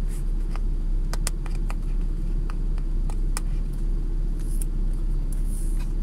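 A car engine idling with a steady low hum, with scattered light clicks and ticks of a small cardboard box being handled and its tape seals picked at.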